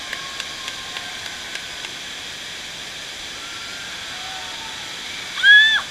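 Steady rush of water pumped over a surf simulator's standing-wave surface. Near the end comes a short, loud, high-pitched shout.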